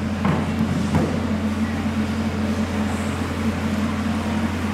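A steady low hum, like a motor running, with two faint knocks about a third of a second and a second in.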